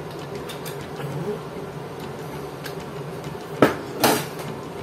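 A knife prying at the glued plastic casing of a small handheld heat sealer: faint scratching, then a sharp plastic snap about three and a half seconds in as the cover comes loose, followed at once by a louder knock of pieces set down on a wooden table.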